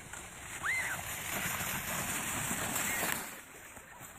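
Plastic sled sliding over packed snow toward the microphone, a scraping hiss that swells for a little over two seconds and stops suddenly as the sled comes to rest. A child gives a short high squeal at the start of the slide and another near its end.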